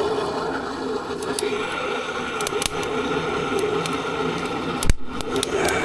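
Dry firewood burning in the firebox of a wood-fired boiler: a steady rushing with scattered sharp crackles. A single sharp knock comes about five seconds in.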